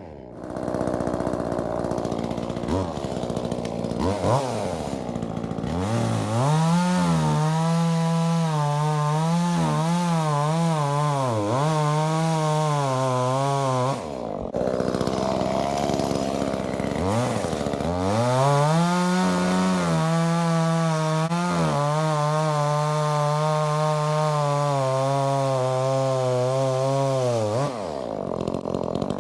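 Muffler-modded Echo CS-271T top-handle two-stroke chainsaw: a few quick revs, then two long full-throttle cuts through wood, its pitch wavering as the chain bites, with a short break between them.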